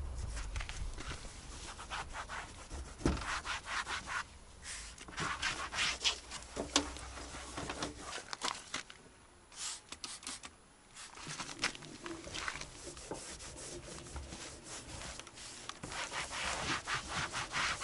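A cloth rag rubbing back and forth over a plastic car door handle and door trim in irregular strokes, polishing it, with short pauses between bouts.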